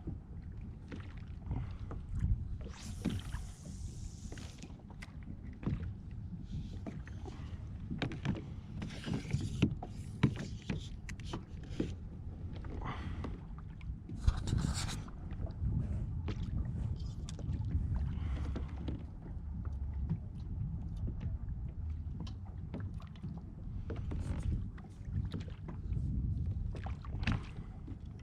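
Sounds of a fishing kayak on the water: a steady low rumble of water and handling noise, with many scattered knocks and clicks against the hull and a few brief hissing bursts.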